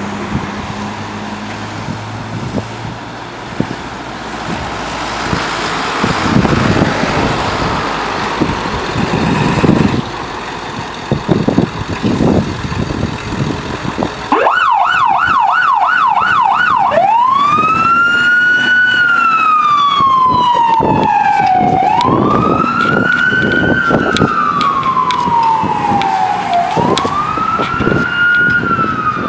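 Emergency vehicle engine and road noise for about fourteen seconds. Then an electronic siren comes on with a quick yelp of two or three sweeps a second, and after a couple of seconds switches to a slow wail that rises and falls about every five seconds.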